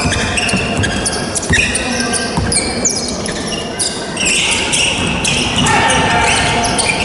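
A basketball bouncing on a hardwood gym floor during play, with many short squeaks from sneakers on the court, in a large echoing gymnasium.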